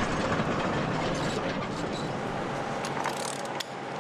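A large sliding hangar door rolling along its track with a steady rumble, and a few metallic clicks shortly before the rumble drops away near the end.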